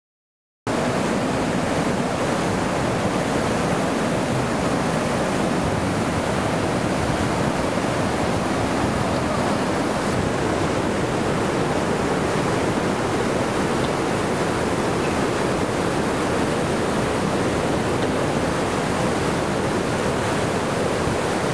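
Floodwater rushing through a dam's sluice, a loud, steady, unbroken torrent that cuts in suddenly just under a second in. The dam is running in flood, with the water up to the underside of the bridge.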